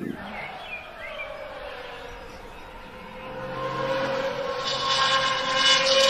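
Racing supercar's engine running at speed on a circuit, a single steady engine note that grows louder from about halfway through as the car approaches and passes.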